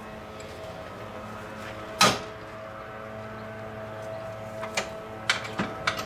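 Hand tools and metal parts knocking as the crash bumper's bolts are checked and snugged: one sharp clank about two seconds in, then a few lighter clicks and taps near the end, over a steady low hum.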